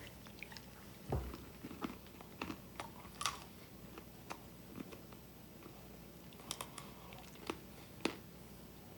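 Someone eating a mouthful of peanuts: faint, scattered short crunches and clicks of chewing, irregular, about a dozen.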